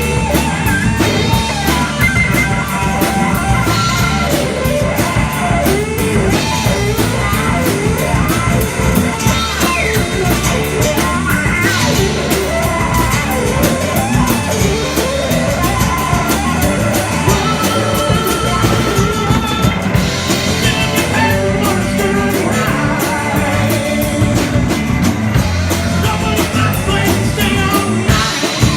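Live rock band playing loud and steady: electric guitar over a drum kit, with some gliding guitar or vocal lines.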